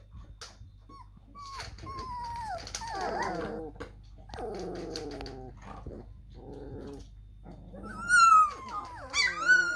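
Three-week-old German Shepherd–Labrador cross puppies whining in short, falling calls, with some lower calls midway and loud high squeals near the end.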